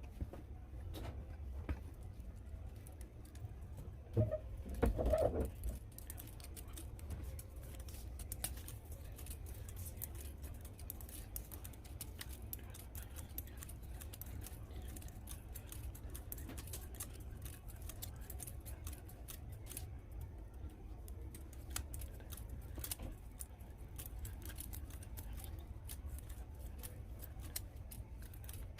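Small clicking and scraping handling noises over a steady low hum, with a louder knocking cluster about four to five seconds in.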